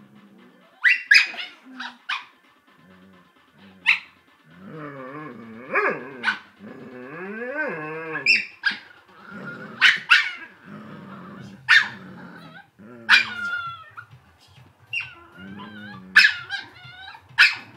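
A dog barking in play, sharp barks again and again, with drawn-out vocal sounds that slide up and down in pitch between them.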